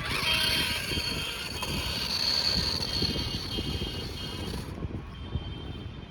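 Toy RC monster truck's small electric motor whining as it drives through tall grass, over a dense crackle low down. The whine drops away about three quarters of the way through.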